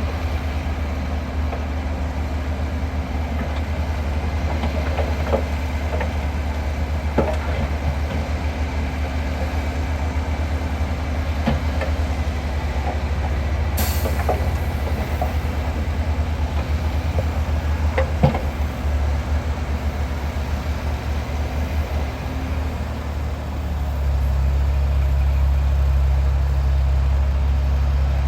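Heavy earth-moving machinery: a big engine running with a steady low rumble, with scattered metallic clanks and knocks. The engine grows louder about three-quarters of the way through.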